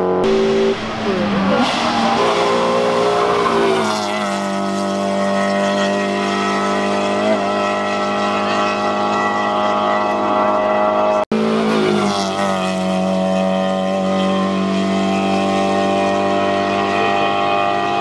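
Race car engine revving high up a hill-climb course, its note held steady for stretches and stepping down in pitch a few times. The sound breaks off abruptly about eleven seconds in and starts again with another run of high revs.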